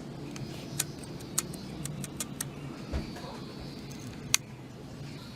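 Sharp clicks and light taps of small hard objects being handled, six or so at uneven intervals, with one dull thump about three seconds in, over a steady low hum.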